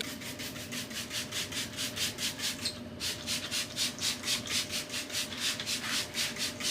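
Horsehair brush scrubbing a leather car seat with leather cleaner in quick, even back-and-forth strokes, about four to five a second, with a brief pause about halfway through.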